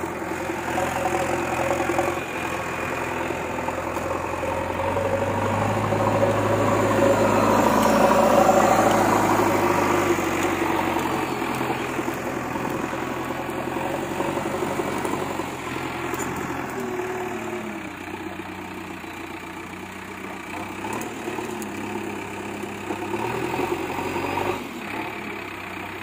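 JCB 3DX backhoe loader's diesel engine running under load as the machine drives with a loaded front bucket. The engine note builds and is loudest about eight seconds in, then eases back to a steadier running note.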